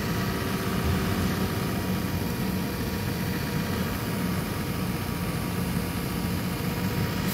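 Car driving along a road, heard from inside the cabin: a steady engine hum with road noise.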